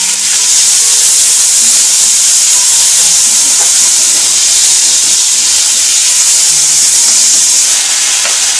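Tomato paste and ginger-garlic paste sizzling loudly in hot oil in a kadai. It is a steady hiss that eases slightly near the end.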